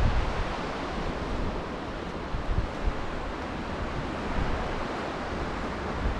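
Sea waves washing onto the shore in a steady hiss of surf, with light wind noise rumbling on the microphone.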